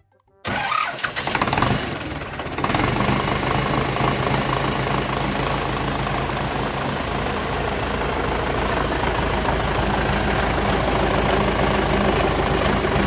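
YuMZ tractor's diesel engine comes in suddenly about half a second in. It runs unevenly for about two seconds, then settles into a steady idle.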